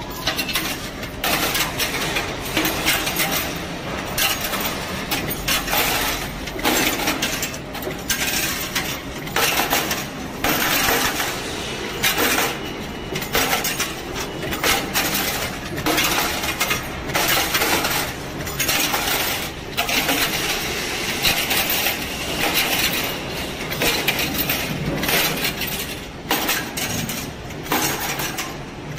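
Vertical thread rolling machine running, rolling 5/16-inch threads onto 200 mm steel studs: a steady mechanical running sound with sharp metallic clinks of the studs about once a second.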